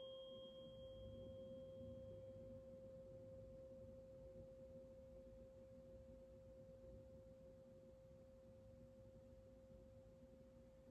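Quiet tuning fork ringing a single pure, steady tone that slowly fades, struck just before; a fainter higher ring dies away in the first two or three seconds.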